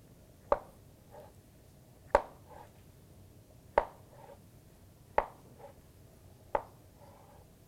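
Chef's knife slicing through an avocado and knocking down on a plastic cutting board: five sharp knocks, evenly spaced about a second and a half apart.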